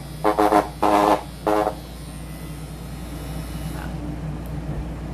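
Rotary tattoo pen machine buzzing in three short loud bursts in the first two seconds as its needle works against cardboard, then running on as a quieter steady low hum.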